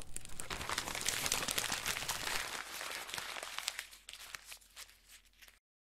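Sound effect of ground cracking and crumbling: a dense run of small crackles that thins out to scattered cracks over the last couple of seconds and then cuts off.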